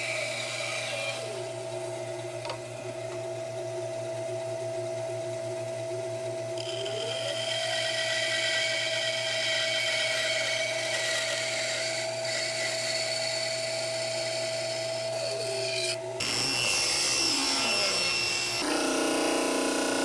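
Power saw cutting a wooden mallet handle: the motor runs steadily and its pitch sags while the blade is in the wood, recovering between cuts. About sixteen seconds in, the sound switches abruptly to a different shop sound.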